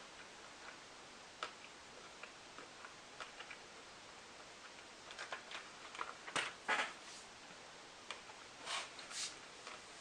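Someone quietly eating a snack of walnuts and cake pieces: faint scattered small clicks with a few short crunchy rustles, a cluster about halfway through and two more near the end.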